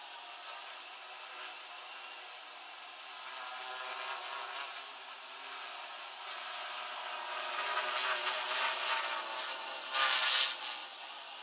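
Home-built quadcopter's electric motors and propellers buzzing steadily in a hover. It grows louder about eight seconds in, with a brief louder surge about ten seconds in.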